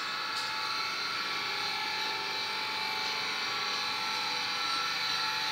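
Steady mechanical hum with a thin whine from a running jig boring machine, held even with no change in pitch or level.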